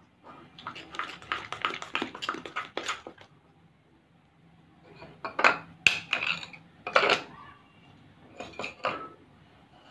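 Metal spoon stirring and scraping thick slime against a ceramic bowl, a quick run of clinks for a few seconds. Then a few separate, louder clinks and knocks of the spoon and bowl.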